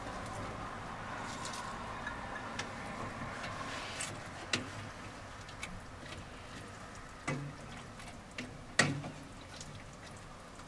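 Shredded red cabbage tipped from a colander into a pot of thick soup, then stirred in with a wooden spoon. There is a soft wet churning, with a few sharp knocks of the spoon against the pot, the loudest near the end.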